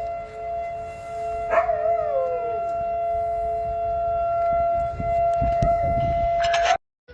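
RSH-10 outdoor warning siren sounding a steady, held tone. About one and a half seconds in, a second tone glides down in pitch. The recording cuts off abruptly just before the end.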